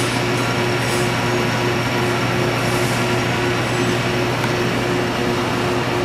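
Metal lathe running with the workpiece spinning in the chuck: a steady machine hum with a tone that pulses about three times a second. A few faint light ticks come from the boring bar brushing burr inside the bore as it is fed in to touch off.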